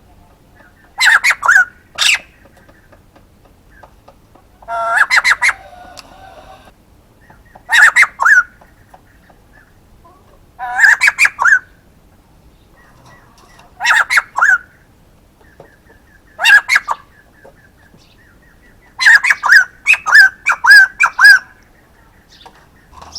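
Male white-crested laughingthrush calling loudly in short bursts of rapid chattering notes, repeated every two to three seconds. Near the end it gives a longer run of about two and a half seconds.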